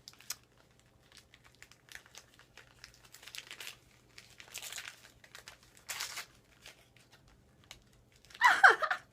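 Paper and plastic gift wrapping crinkling and tearing in the hands, in several short bursts with quieter rustling between.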